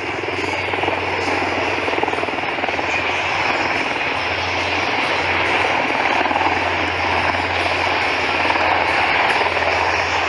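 Steady drone of aircraft passing overhead: an HC-130 four-engine turboprop tanker flying with two HH-60 Pave Hawk helicopters, with a steady low hum under the noise.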